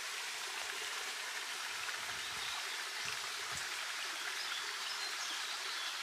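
Small, shallow stream trickling over stones: a steady, even babble of water.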